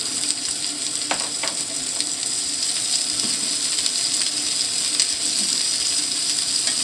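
Bacon chunks and sliced garlic sizzling steadily in hot olive oil in a frying pan, with a few clicks of tongs moving the pieces.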